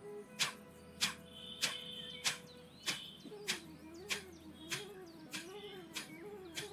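Kapalabhati breathing: a steady series of short, forceful exhalations through the nose, about one every 0.6 seconds, each a quick sharp puff of air.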